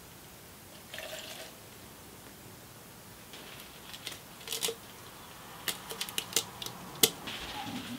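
Sharp clicks and taps of a tool against a metal paint can, a few around the middle and then a quick run of about eight, the loudest near the end.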